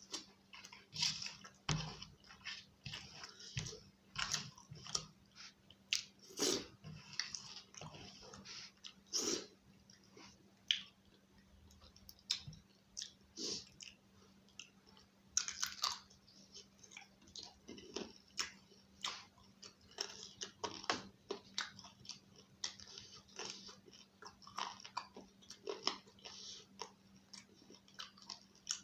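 Close-miked chewing and mouth sounds of a person eating roti with curry: irregular bites and chews, one or two a second, with short pauses between mouthfuls.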